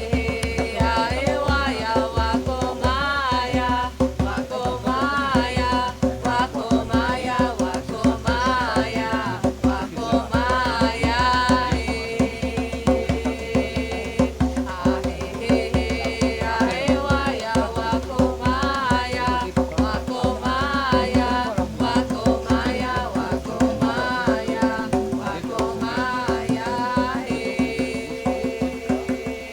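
Music: a quick hand-drum pattern over a steady held drone, with a wavering, sliding melody line on top.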